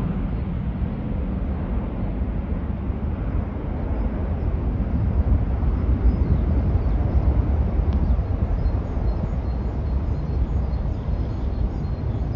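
Steady low jet rumble of a McDonnell Douglas KC-10A Extender tanker's three General Electric CF6 turbofans as the aircraft climbs away after takeoff.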